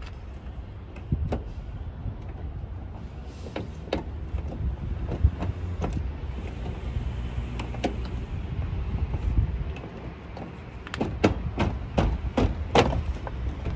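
Plastic car door trim panel being pushed back onto the door: scattered clicks and knocks as it is handled and pressed into place, with a quick run of sharp clicks near the end, over a steady low rumble.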